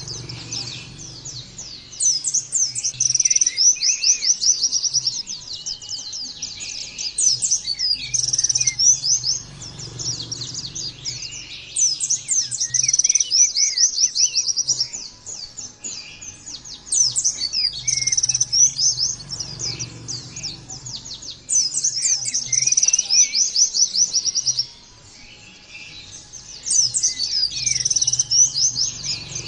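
White-eye (pleci) singing: fast, high, twittering phrases of a few seconds each, repeated with short gaps, over a faint low hum.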